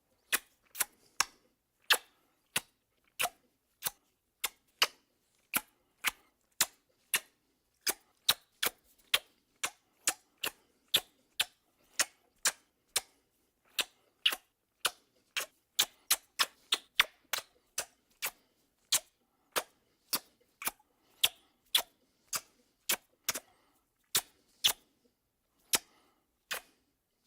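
Cartoon kissing sound effect: a long series of short, sharp lip-smack kisses, irregularly spaced at roughly one to two a second, with silence between them.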